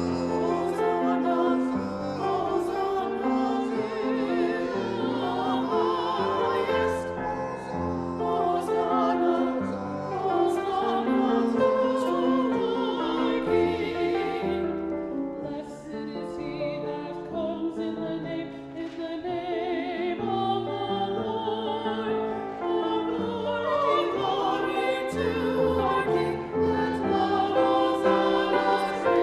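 Sacred vocal music: singing voices holding sustained notes with vibrato over instrumental accompaniment.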